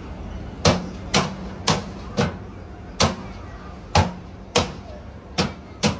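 About nine sharp knocks at uneven intervals, the fan guard being fitted onto the casing of an air conditioner outdoor unit.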